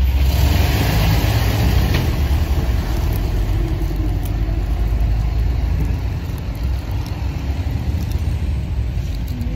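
Vehicle engine running, heard from inside the cabin as a steady low rumble that eases off slightly about six seconds in.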